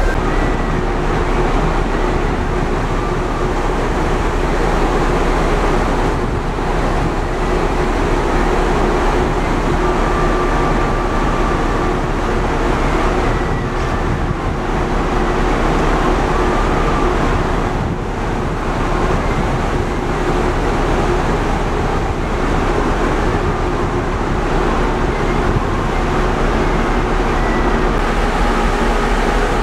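Steady, loud noise from the open deck of the ferry Stena Superfast VIII under way: the ship's engines, the rush of water along the hull, and wind across the deck, with no change throughout.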